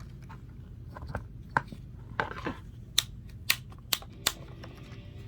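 Hard plastic clicks and taps from the Masters of the Universe Origins Stridor toy as its jointed legs are moved by hand. There are about seven sharp, separate clicks, irregularly spaced.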